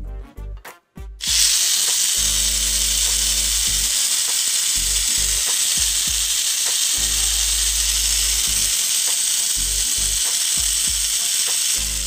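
A few clicks, then about a second in a Tamiya Mini 4WD's small electric motor and gear train start running with a loud, steady, high-pitched gear noise. The noise comes from a damaged propeller shaft, whose pinion gear is chattering against the gears.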